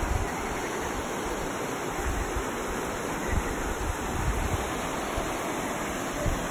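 Gediz river rushing over rocks in shallow rapids, a steady white-water rush, with wind now and then buffeting the microphone in low rumbles.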